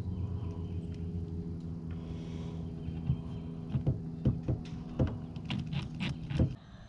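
Cordless drill motor running at a steady pitch while driving hinge screws, with several sharp clicks over its second half, then cutting off suddenly.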